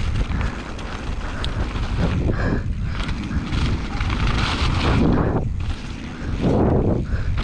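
Mountain bike descending a snow-covered dirt trail: wind rushing over the camera's microphone mixed with the bike's tyre and trail noise, a steady rumble that swells and eases several times.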